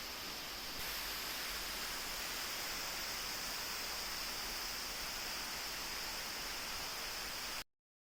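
Steady rushing of a waterfall, a little louder about a second in, cutting off suddenly near the end.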